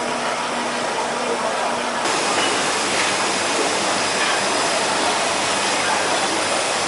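Steady rush of running and bubbling water from aerated live-seafood tanks, with the sound changing about two seconds in.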